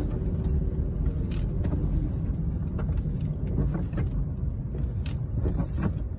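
Car cabin noise while driving slowly on a wet road: a steady low rumble of engine and tyres, with a few short ticks.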